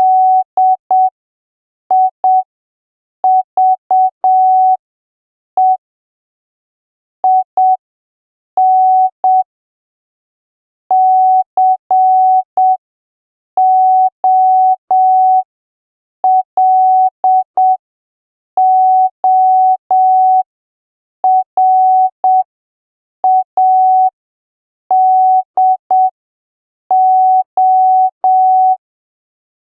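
Morse code sent as a single steady beep tone keyed on and off in short dots and longer dashes, with longer gaps between letters and words, at a slow practice speed of about 5 words per minute.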